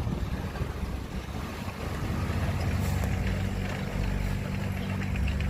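Diesel engine of heavy earthmoving machinery running steadily with a low, even hum.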